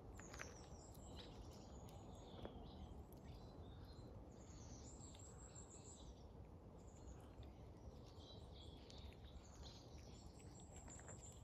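Near silence: faint songbirds chirping and twittering in short high phrases over a low steady hiss.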